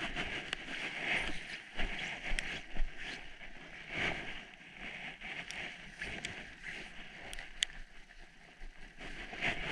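Wind gusting over the camera microphone on open lake ice, a steady hiss with uneven low buffeting, and scattered light ticks.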